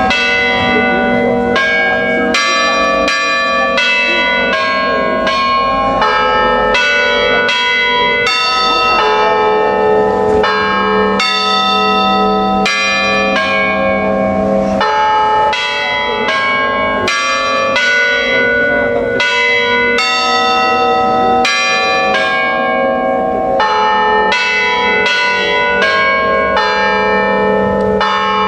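Church bells struck by hammers while hanging still, playing a melody: a quick run of strokes, about two or three a second, each note ringing on under the next.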